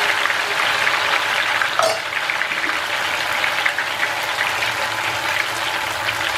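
Hot oil in a kadhai sizzling and crackling densely as thin ghevar batter is poured into a ring mould in it and fries into a froth, with a light clink about two seconds in.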